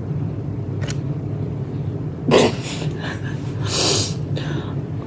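Short breathy sounds from a person: a brief vocal noise about two seconds in, then a breathy exhale or sniff-like hiss near four seconds, over a steady low room hum.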